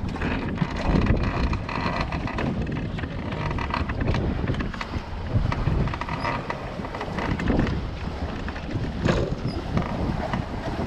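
Wind buffeting the microphone over the rush of water along a sailing boat's hull while under way, a dense noise that rises and falls continually.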